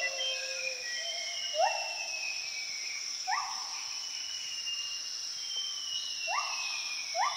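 Forest ambience: a steady high insect drone. Over it, animal calls repeat every second or two as short notes that sweep quickly up and then fall away, mixed with longer, slowly falling whistles.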